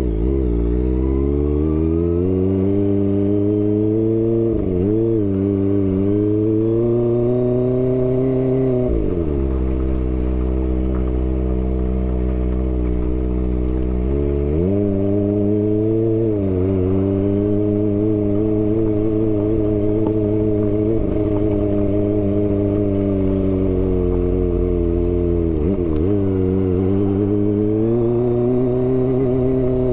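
Kawasaki ZX-25R's 250 cc inline-four engine under way at low speed, the revs climbing and dropping back several times as the rider works the throttle and gears.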